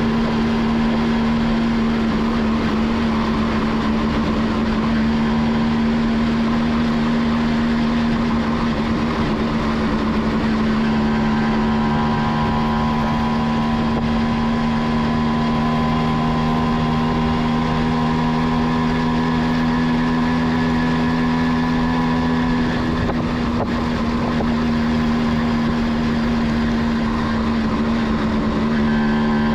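1989 Kawasaki B1's two-stroke engine running at a steady cruising speed on the move, with wind and road noise underneath.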